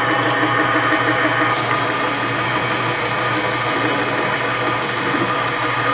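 Mini lathe running under power feed, its motor and gear train giving a steady whine while a carbide turning insert cuts a 1018 steel bar.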